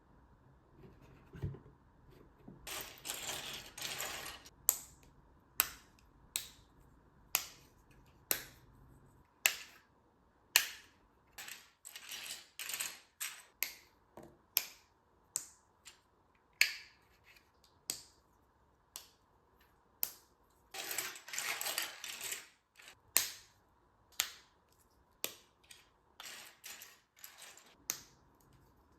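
LEGO bricks of the Mandalorian helmet being pressed together, each a sharp plastic click, mostly one at a time a second or so apart. Two longer stretches of quick clicking and rustling come about three seconds in and about twenty-one seconds in.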